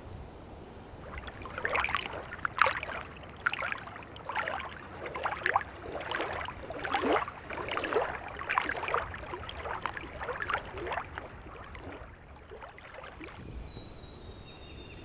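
Small waves lapping against a rocky lake shore: an irregular run of short splashes and slaps, about two a second, dying away near the end.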